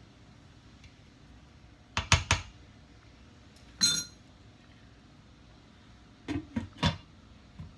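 Kitchenware knocking and clinking: three quick knocks, then a single ringing metallic or glassy clink, then three more knocks.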